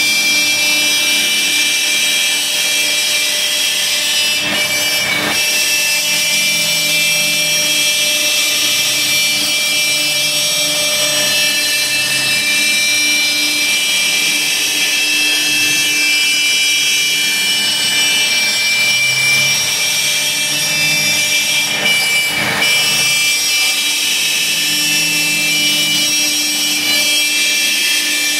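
Laguna Swift CNC router routing 1/2-inch plywood: the spindle whines steadily while the router bit cuts, with lower tones that shift as the gantry moves the head, over the steady drone of a dust collector.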